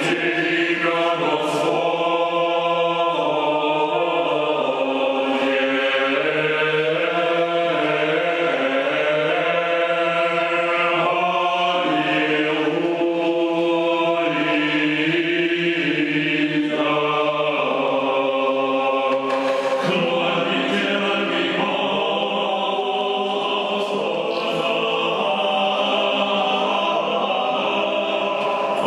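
Choir singing Orthodox liturgical chant, several voices holding long notes and moving from note to note together.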